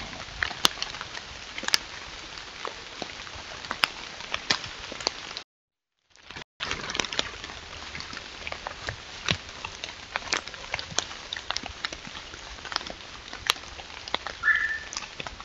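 Black bear walking through dry leaf litter: scattered crackles and rustles of leaves and twigs underfoot over the steady hiss of a trail camera's microphone. The sound drops out for about a second some five seconds in, and there is one short high chirp near the end.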